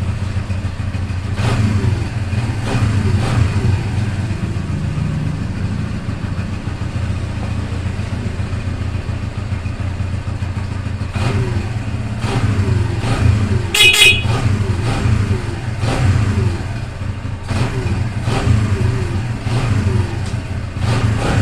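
Kawasaki Barako 175's single-cylinder four-stroke engine running steadily at idle, with a few small surges in speed. It is now running after starting on one click: the hard start has been fixed. A brief high-pitched squeak comes about two-thirds of the way in.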